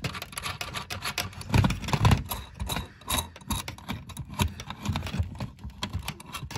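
A metal hex nut being spun by hand onto a threaded metal nipple, with irregular scraping and small clicks as the fingers work it along the threads.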